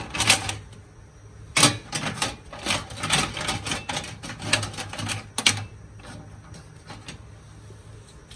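Kitchen clatter: a quick run of sharp clicks and knocks, as of cookware and seafood being handled at a steamer pot, dying down after about five seconds over a low steady hum.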